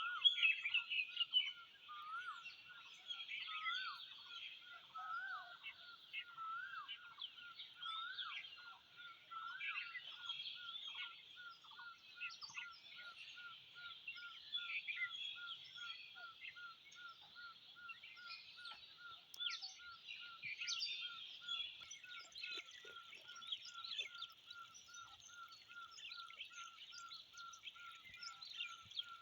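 Several wild birds chirping and calling together, with many quick high chirps; one bird repeats a short lower note evenly about two or three times a second from about ten seconds in.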